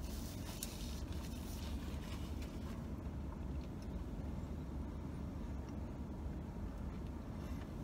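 Steady low rumble inside a parked car's cabin, with a few faint ticks.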